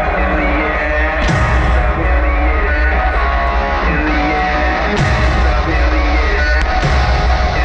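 Loud rock-style show music played over loudspeakers, with a heavy bass line and a few sharp hits about a second, five seconds and six and a half seconds in.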